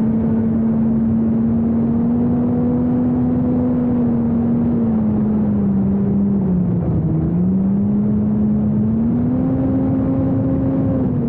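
Model aircraft propeller humming at high speed, heard from on board an FPV chase plane, over wind rushing past the airframe. The pitch dips in the middle and rises again with throttle changes.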